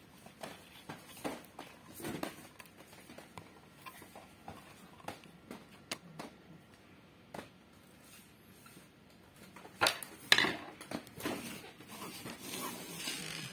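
Small scattered clicks and scrapes of a screwdriver driving screws through a drive bracket into a 3.5-inch hard drive, with a louder clatter of handling about ten seconds in. Near the end, the crinkle of the anti-static bag under the drive.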